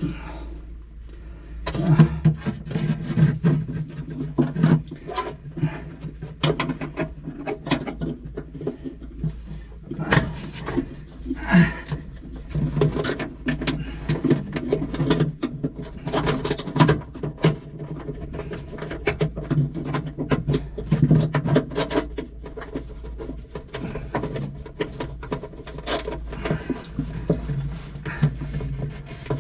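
Irregular clicks, knocks and rustling of hands and tools working metal fuel-line fittings onto a Cessna 150's fuel shutoff valve, over a steady low hum.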